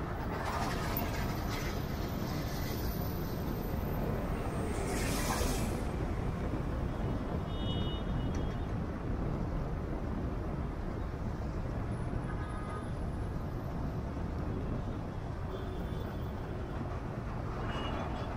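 Steady road and engine rumble of a car driving on a highway alongside heavy trucks. Two brief hissing swells rise over it, one about a second in and one about five seconds in, and another comes near the end.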